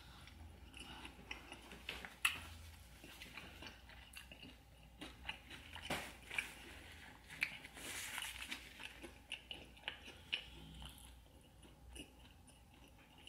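Close-miked chewing of a mouthful of sauce-coated fried chicken: faint, irregular crunching and wet mouth clicks. A paper napkin rustles briefly around the middle.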